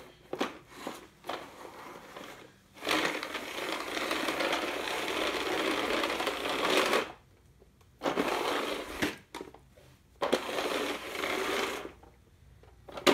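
Hand-pushed Hurricane Spin Broom floor sweeper rolling over a hard floor, its geared roller brush and two spinning edge-cleaning discs whirring as it sweeps up fine sand. It comes in several pushes with short pauses between, the longest about four seconds, after a few light clicks at the start.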